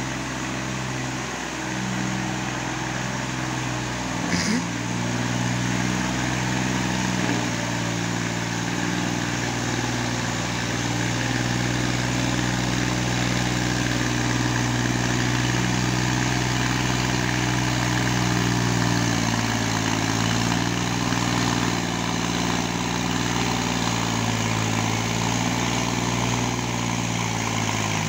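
Farm tractor's diesel engine running steadily under load as it churns through a flooded paddy field on cage wheels. Its pitch dips briefly about two-thirds of the way through and again at the end. There is a short sharp click about four seconds in.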